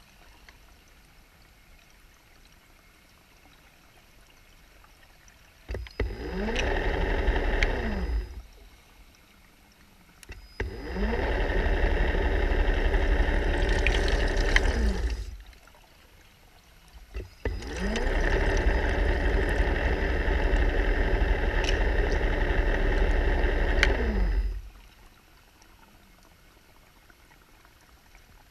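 Diver propulsion vehicle (underwater scooter) motor heard underwater, run three times for a few seconds each, its pitch rising as it spins up and dropping as it stops. The last run is the longest.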